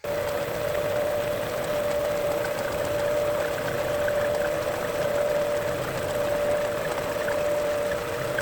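Metal lathe running steadily while turning down a 416 stainless steel part: an even hiss with a steady mid-pitched whine.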